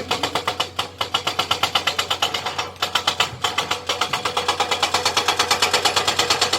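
Excavator-mounted hydraulic rock breaker hammering on rock in a fast, even rhythm of about ten blows a second, over the steady hum of the machine's engine.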